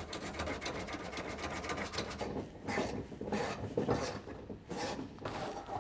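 Hand socket ratchet clicking as a bolt is worked loose to remove an aircraft control-cable pulley: a quick run of clicks at first, then separate short strokes about every half second from about two seconds in.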